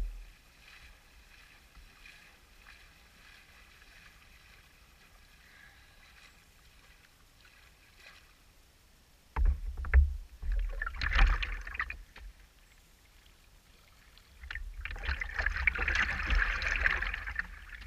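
Water lapping and splashing against the hull of a Traxxas Spartan RC boat, heard close up from its onboard camera, with no motor running. The lapping is faint at first, then comes in loud, irregular splashes from about nine seconds in and again for the last few seconds as someone wades up and grabs the boat.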